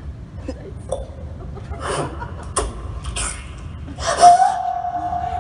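Theatre audience laughing and gasping in short scattered bursts, then a loud voice cries out about four seconds in and holds one note for about a second.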